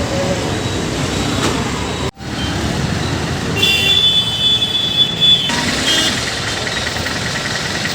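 Road traffic noise, broken by a sudden cut about two seconds in. Then a vehicle horn sounds, a high steady tone held for about two seconds, and a fainter steady tone follows.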